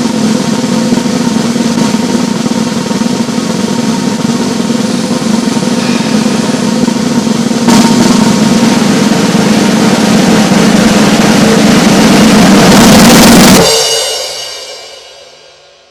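Snare drum roll played continuously, getting louder about eight seconds in and swelling to a peak. It then stops on a final hit that rings and fades away over the last two seconds.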